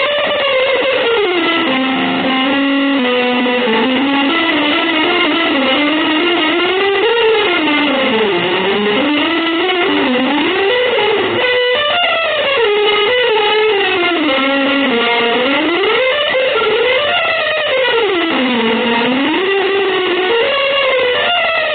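Electric guitar holding long sustained notes that bend and slide up and down in pitch in slow sweeps.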